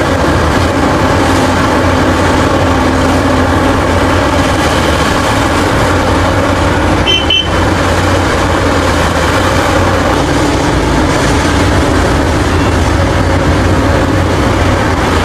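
Diesel engine of a Caterpillar 6015B hydraulic mining excavator running steadily as the machine digs and loads a dump truck. A brief high beep sounds about seven seconds in.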